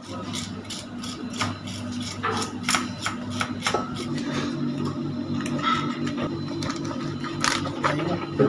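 A knife scraping the scales off a large parrotfish on a wooden board: a quick run of sharp scraping clicks, densest in the first four seconds and thinning out after. A steady low hum runs underneath.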